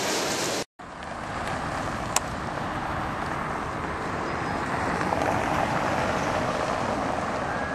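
Cars driving over a cobblestone street: a steady hiss and rumble of tyres on the paving stones, with one short sharp click about two seconds in. It follows a brief stretch of hissing indoor noise that cuts off under a second in.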